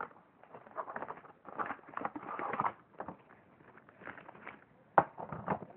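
A cardboard doll box being handled: irregular rustling and scraping of the box and its packaging, with a sharp knock about five seconds in.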